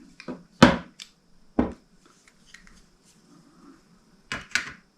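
Sharp knocks and clicks of metal pedal parts and tools being handled while a flat pedal is taken apart by hand: a loud knock under a second in, another at about a second and a half, and a quick cluster of clicks near the end.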